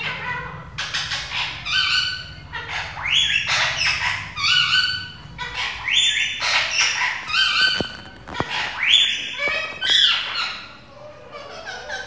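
Rose-ringed parakeet calling over and over: short, high-pitched calls in quick runs, dying away near the end.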